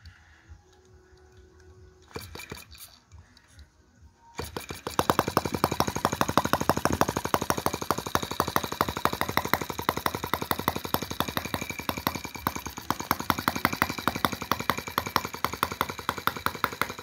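Microcosm T26 model tractor's 1.9 cc single-cylinder four-stroke gasoline engine, spun by hand. After a few light clicks it catches about four seconds in and runs fast and steady, with a rapid, even popping exhaust.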